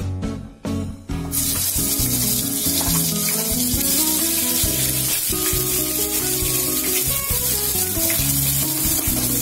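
Ground horse gram paste hitting hot oil in a wok and sizzling, starting suddenly about a second in and then running steadily, over background guitar music.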